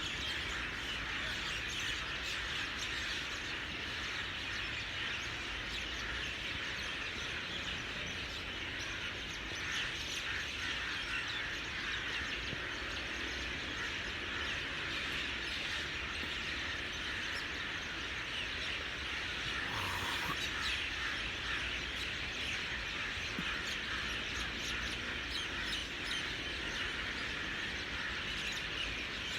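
Dense chorus of many small birds chirping and calling continuously, over a low steady hum.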